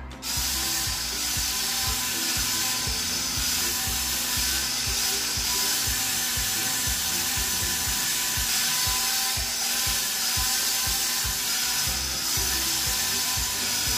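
Small electric motor and plastic gears of a toy remote-control wall-climbing car running in floor mode, a steady whir with a fast clicking gear rattle.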